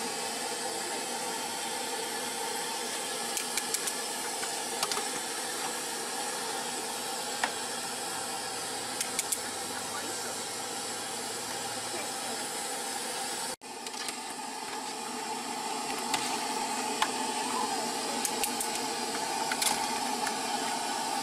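Steady hissing of a street-food noodle cart's boiling water pot and the stove under it, with scattered light clicks of utensils. The sound cuts out for an instant about two-thirds of the way through, then resumes.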